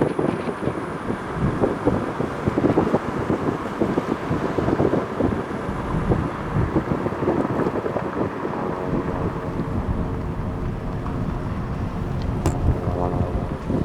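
Wind gusting against the microphone in uneven, rumbling buffets. Past the middle, a steady engine-like drone joins in.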